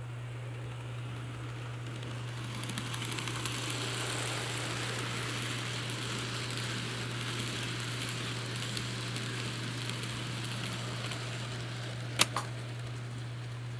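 An N scale freight train rolling past on the track: a light steady rattle of small metal wheels on the rails, with little clicks over the rail joints and turnout, growing and then fading as the cars go by. Near the end there are two sharp clicks in quick succession, and a steady low hum runs underneath.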